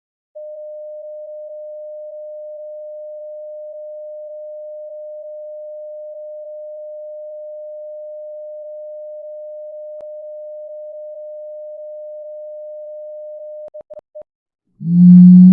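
A steady electronic beep: one pure tone held for about thirteen seconds, then broken into a few short beeps before it stops. A loud, low ringing tone comes in near the end.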